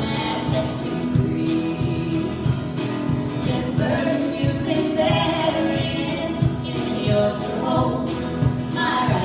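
An original folk-style band song: voices singing over instrumental accompaniment with a steady beat.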